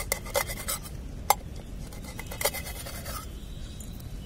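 Kitchen knife tapping and scraping on an upturned stainless-steel plate while slicing a green chilli: a handful of irregular sharp clicks, the sharpest a little over a second in.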